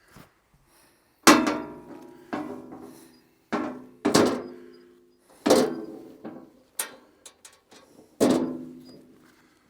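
About seven hard metallic clanks at uneven intervals, each ringing briefly and fading over about a second, from steel parts of a portable bandsaw mill being struck or set in place.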